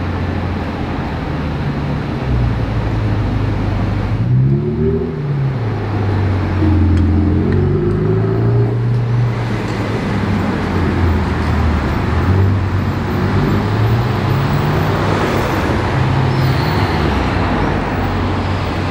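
Ferrari supercar engine running in slow street traffic, revving up and easing off several times, with general traffic noise around it.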